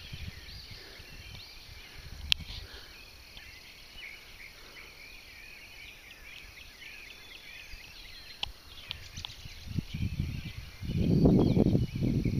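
Songbirds chirping and twittering in the background, many short chirps. A single sharp click about two seconds in, and a louder low rumble near the end.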